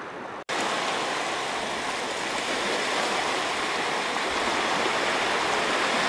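Small waves breaking and washing onto a sandy beach, a steady rushing hiss. The sound cuts out for an instant about half a second in and comes back louder.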